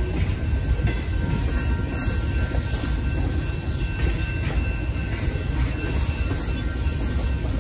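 Freight train of boxcars rolling past at a grade crossing: a steady, loud low rumble of steel wheels on rail.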